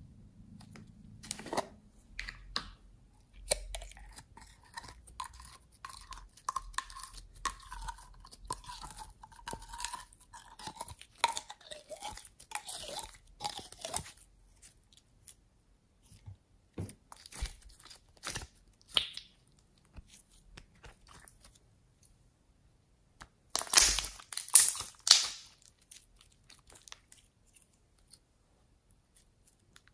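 Thick blue slime squeezed out of a plastic bottle-shaped container and dropping into a glass bowl: wet, sticky crackling and popping clicks, with a faint wavering whistle for several seconds in the first half. After a quieter stretch comes a louder cluster of crackles.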